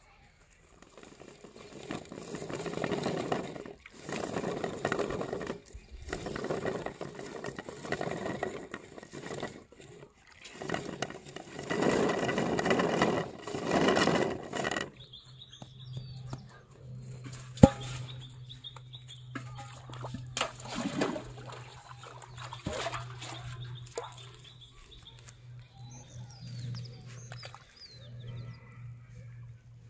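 Rustling in bursts of a couple of seconds, like footsteps through grass and a plastic sack being handled, for about half the time. Then a steady low hum comes in with light handling clicks and one sharp snap.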